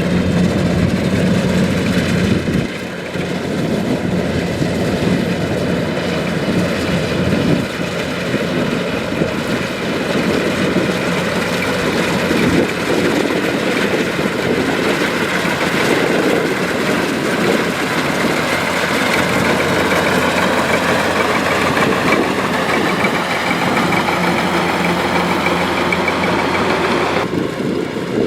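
Kubota DC-105X rice combine harvester running, its diesel engine and harvesting machinery making a loud, steady mechanical drone. Near the end the higher-pitched part of the noise drops away suddenly.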